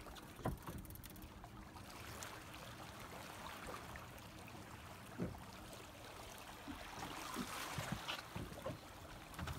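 Sea water lapping and splashing against a small boat's side while a hooked fish splashes at the surface close by, busiest near the end. Two faint knocks, about half a second in and about five seconds in.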